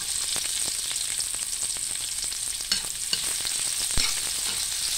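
Chopped garlic and onion frying in a metal wok, crackling and sizzling, while a metal spatula stirs them. Two sharp knocks of the spatula against the pan come about three and four seconds in.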